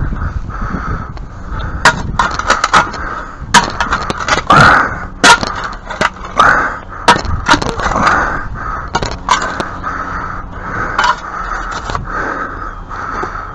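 A hand tool knocking and scraping against broken brick chunks and packed sand as they are pried out: irregular sharp knocks, busiest in the middle.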